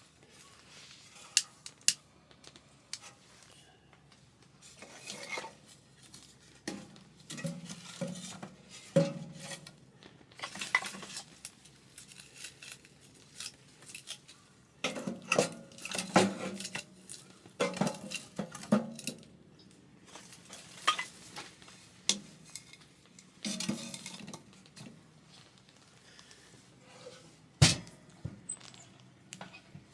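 Utensils clinking and scraping against dishes and pans in irregular bursts, with one sharper clink near the end.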